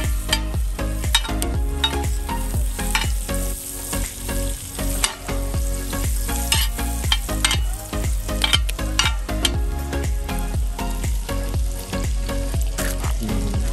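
Butter melting and sizzling in a metal pan over hot coals, with a metal spoon scraping and tapping against the pan in many short clicks.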